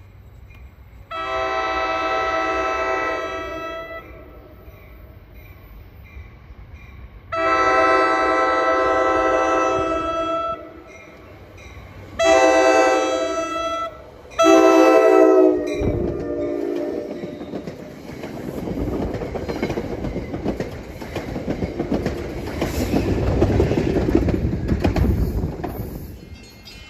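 Commuter train horn sounding four blasts as the train approaches: two long, then a short one and a final one, the pattern of a grade-crossing warning. The train then passes close by with a rising rumble and clatter of wheels on the rails that fades near the end.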